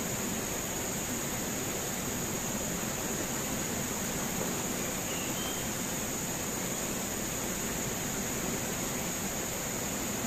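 Fast river water rushing over shallow rapids, a steady, even rush, with a steady high-pitched whine laid over it.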